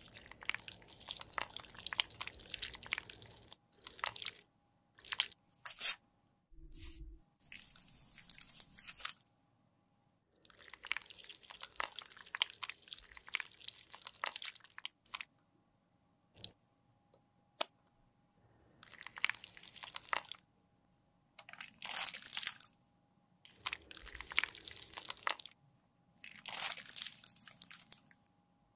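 Close-miked crackling and squishing in repeated stretches a second or a few seconds long, broken by short pauses. A brush works liquid lip colour and foundation on a marble palette, and gloved fingers squeeze and smear the makeup inside a crinkling clear plastic film.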